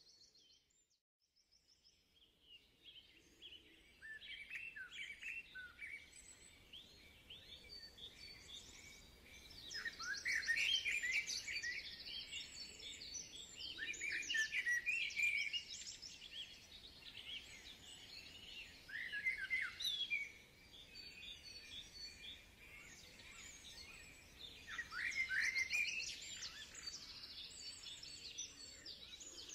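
Songbirds singing and calling, many short chirps and quick trills overlapping, coming in after a brief near-silent gap at the start.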